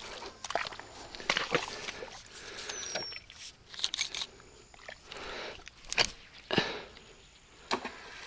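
Scattered knocks, rustles and footsteps as a baited bank line with a sinker is handled and cast using a homemade casting stick made from a broken spinning rod. Two sharper knocks come about six seconds in, and a short falling whistle sounds near three seconds.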